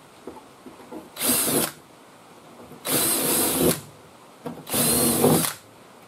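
Cordless DeWalt drill running in three short bursts, a 1/8-inch bit passing through pre-drilled holes in the overlapping sheet metal of a cab corner patch panel to clear them for rivets.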